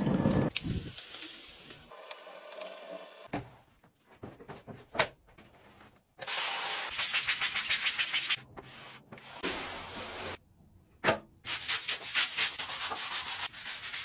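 Long-handled stiff-bristled floor brush scrubbing a wet, soapy tiled floor in quick back-and-forth strokes, in spells with short pauses and a few knocks between them.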